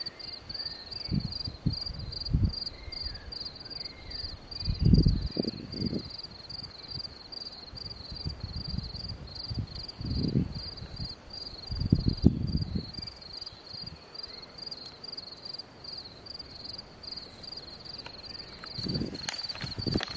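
Insects chirping in a steady high-pitched pulse, about three chirps a second, with bursts of low rumble coming and going, loudest about five and twelve seconds in.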